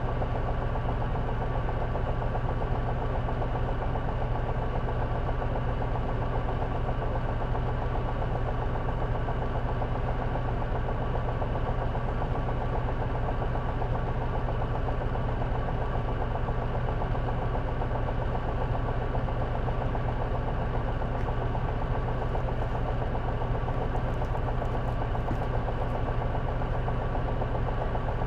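Diesel engine of a J-Bus-built route bus idling steadily, heard from inside the passenger cabin, with a thin steady whine above the engine hum.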